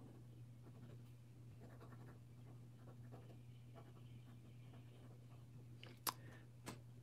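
Faint scratching of a Pelikan M200's extra-fine stainless steel fountain pen nib writing on paper, a nib with a fair amount of feedback, over a steady low hum. A sharp click about six seconds in and a softer one just after.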